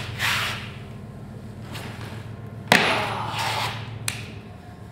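Clothing rustling and a person shuffling close to the microphone while sitting down on a couch, with one sharp thump about two and a half seconds in and a lighter click near the end, over a steady low hum.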